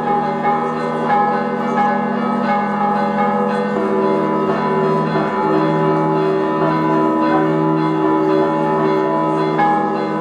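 Greek Orthodox church bells ringing steadily in a continuous peal, the strokes overlapping into a dense wash of tones, rung for a religious procession.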